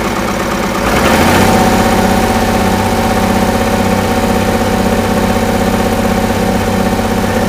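Oliver 770 tractor's six-cylinder engine opened up about a second in, then running steadily at high idle.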